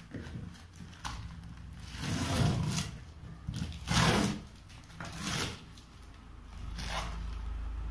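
Printed wrapping on a cardboard stove carton being torn and ripped off by hand, in about four short rasping bursts.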